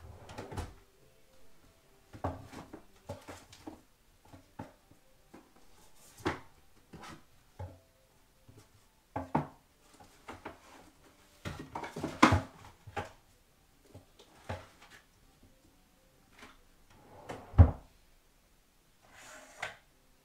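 Bedding rustling and being tucked in while a bed is made, with scattered short knocks and bumps. A heavy thump about three-quarters of the way through is the loudest sound.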